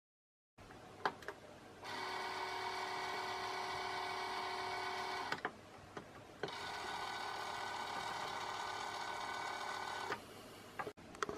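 Meade LX10 telescope's RA drive motor whirring in two steady runs of about three and a half seconds each, with sharp clicks before and after each run. The owner says the motor runs but the RA axis does not move; he takes the drive cog for slipping on its smooth shaft.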